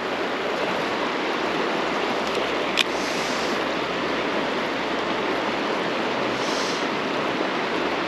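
Mountain stream water rushing steadily, with a single sharp click about three seconds in.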